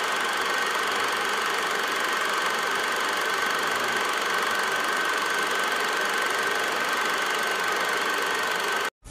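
Film projector running: a steady mechanical whir and clatter with a constant high whine, cutting off abruptly near the end.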